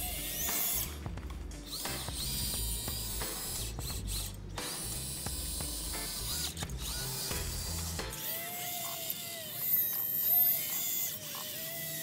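Huina 1580 RC excavator's small electric motors and gearboxes whining, the pitch rising and falling as the boom and arm work the dirt.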